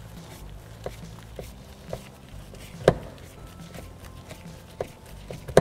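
Phillips screwdriver backing a screw out of an interior car door panel: a run of light clicks roughly every half second, with one sharper knock about halfway through.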